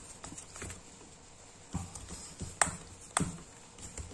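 Green plastic scoop stirring and pressing stiff bait dough in a stainless steel bowl, with a few short taps and knocks of plastic against the metal, the clearest in the second half.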